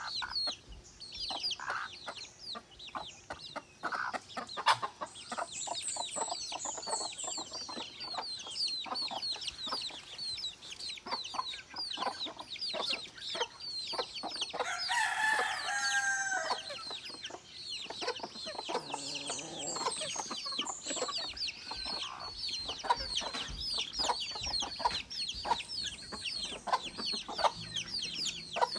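A flock of native chickens: chicks peeping rapidly and continually, with hens clucking among them, and a rooster crowing once for about two seconds midway.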